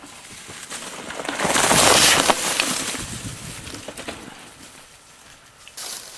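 A mountain bike rolling past on a dirt trail: a crunching rush of tyre noise with scattered clicks. It swells to a peak about two seconds in, then fades away.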